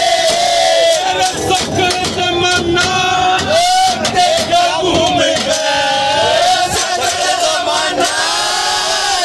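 A group of men loudly singing a Haryanvi ragni folk song together in chorus, their voices shout-like and overlapping.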